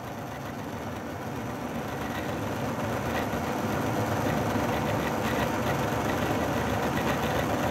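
Intermountain ET44AC model locomotive's motor and gear drive running under load while it strains against a pull meter in a drawbar pull test. Its sound effects are switched off, so this is the mechanism itself: a steady whirring that grows gradually louder as the throttle comes up.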